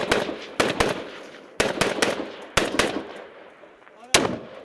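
Close small-arms gunshots, about seven, mostly fired in quick pairs about a second apart, with one loudest single shot near the end; each crack rings out in a long echo.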